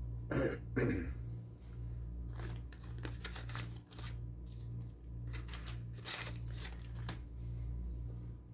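A man coughs twice about half a second in, then a foil packet crackles in his hands in short bursts, over the steady low hum of a window air conditioner.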